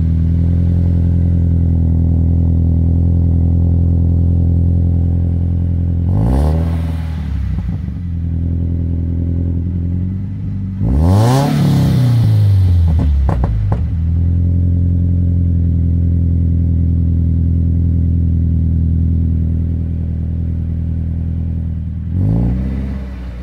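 A warm Subaru Crosstrek 2.0-litre flat-four idling through a Nameless Executive axleback muffler, blipped three times. A short rev comes about six seconds in, a bigger rev that climbs and falls back comes around the middle, and another short rev comes near the end.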